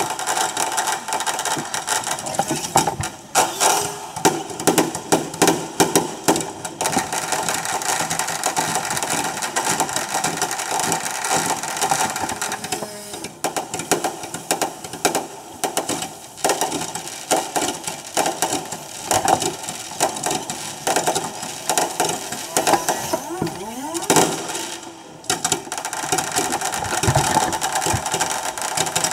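Sped-up, reversed recording of a fireworks display: the bangs and crackles run together into a dense, rapid rattle like a ratchet, with a brief sliding whistle about three quarters of the way through.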